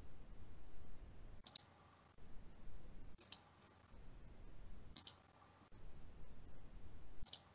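Computer mouse clicking: four short, sharp clicks about two seconds apart, the second one doubled.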